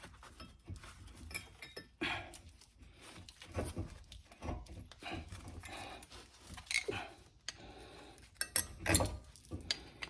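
Rusty front brake pad of a 2014 Volkswagen Jetta being worked out of its caliper bracket: scattered metallic scrapes, clinks and knocks at irregular times, the loudest near the end.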